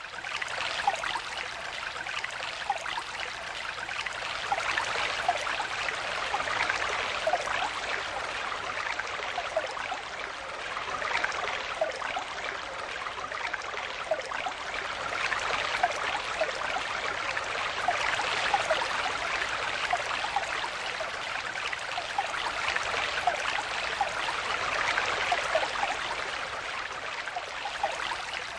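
Small stream flowing steadily over stones, a continuous babble with many small gurgles and splashes.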